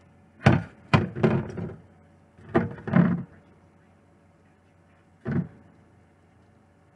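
Knocks and clunks of a metal cooking pot and plastic colander being handled after draining pasta: a quick run of sharp knocks over the first three seconds, then one more a little past five seconds.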